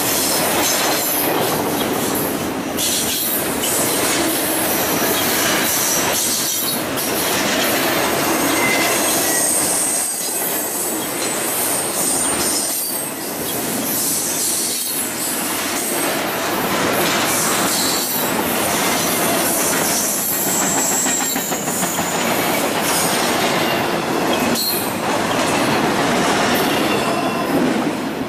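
Double-stack intermodal freight train passing close by: steel wheels rolling and clanking over the rails under the loaded well cars, with short high wheel squeals now and then. The last cars go by near the end.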